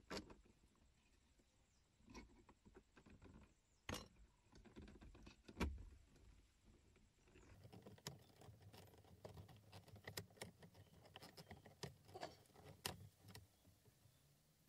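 Scattered plastic clicks, snaps and knocks as a Toyota dashboard's centre air-vent panel is pried loose and handled, the loudest snap about five and a half seconds in, then a quick run of small clicks and rattles.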